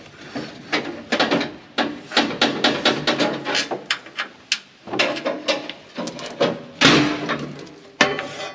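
Irregular clanks, knocks and rattles of hand tools and metal parts being worked on a combine's feederhouse. The loudest knock comes about seven seconds in.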